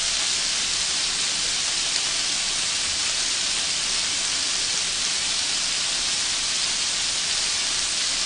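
Shrimp rolls wrapped in thin-sliced pork sizzling on a hot griddle: a steady, even frying hiss.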